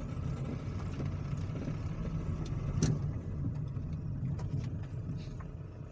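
Toyota Passo's engine running and tyres rolling as the small automatic car drives forward in D, heard from inside the cabin: a steady low rumble, with a single sharp click about three seconds in.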